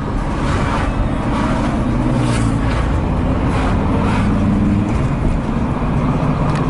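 Road noise heard from inside a moving car: the engine and tyres give a steady low rumble, with several brief whooshing swells of hiss.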